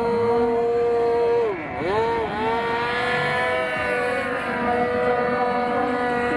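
Several radio-controlled model fighter planes racing past at full throttle, their engines making a high-pitched, steady whine. About one and a half seconds in, the main tone dips sharply in pitch twice and recovers as a plane swoops past, and later another tone slides slowly down in pitch as a plane goes by.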